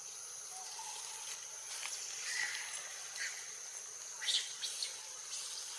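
Steady high-pitched insect chorus, a continuous buzzing drone, with a few short scratchy clicks about four seconds in.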